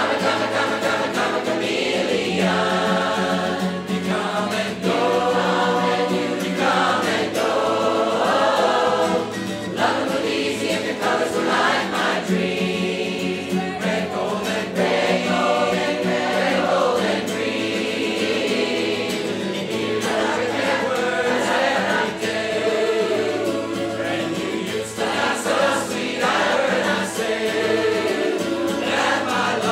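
A large crowd of amateur singers, the audience itself acting as the choir, sings a song together in parts, accompanied by a strummed acoustic guitar.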